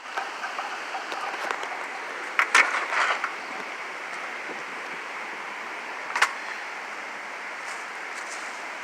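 Steady rush of hurricane wind and rain, with a cluster of short knocks and rattles about two and a half seconds in and one more sharp knock a little past six seconds.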